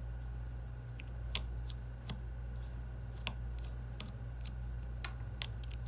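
Irregular small clicks and taps of a precision screwdriver and metal tools on an iPhone's internal parts as a tiny screw is set and driven, over a steady low hum.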